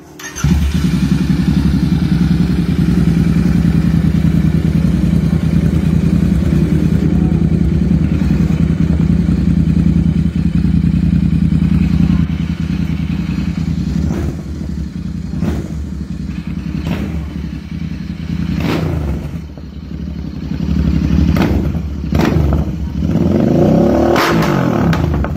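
Royal Enfield Continental GT 650's 648 cc parallel-twin engine idling steadily through an SC-Project slip-on muffler, then blipped sharply several times from about halfway, with a longer rev rising and falling near the end.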